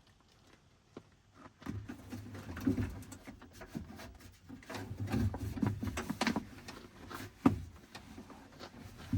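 Handling noise of hand work on a truck door's plastic trim and tools: irregular rustling and clicking, with one sharp knock about seven and a half seconds in.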